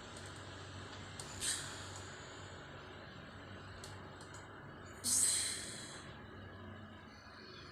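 A sleeping woman snoring: a loud, hissing breath about five seconds in and a fainter one about a second and a half in, over a steady low hum.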